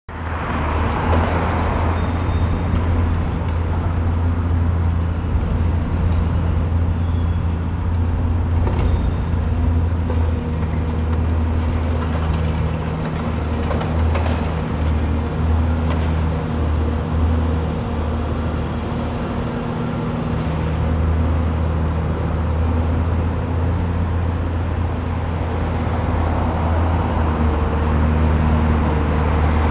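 Diesel engine of a demolition excavator running steadily as a low drone, with a few faint knocks now and then.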